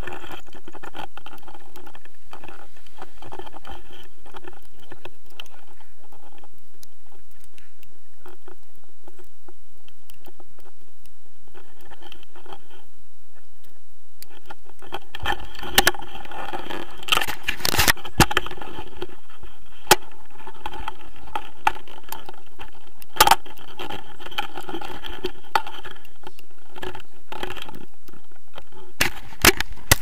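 Handling noise on an action camera's housing: rustling and scraping against clothing and harness, with sharp knocks and clicks from about the middle on.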